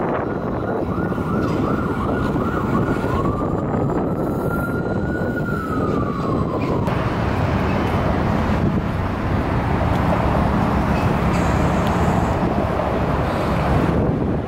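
Trolleybuses and other traffic passing on a city street, a steady rumble throughout. In the first half a high whine holds, rises, then falls away and stops about seven seconds in.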